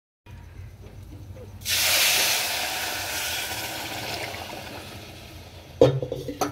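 Water poured into a hot aluminium pot of dry-roasted semolina and tempering sets off a loud sizzling hiss that starts suddenly about two seconds in and slowly dies away as the water takes up the heat. A short knock comes near the end.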